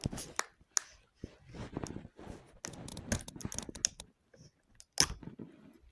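Handling noise from a plastic juice bottle: a run of small, irregular clicks and short rustles, with one sharper click about five seconds in.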